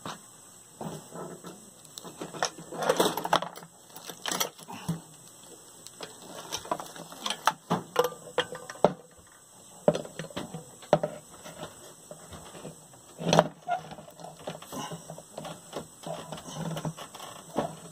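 Irregular metallic clinks, clanks and knocks of hand tools and drill press parts being handled, with louder clanks about three seconds in and again about thirteen seconds in.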